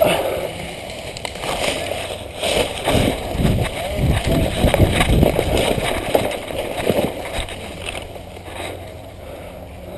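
A player running: irregular heavy footfalls with rustling of gear and jostling of the camera microphone, thickest in the middle and easing off near the end.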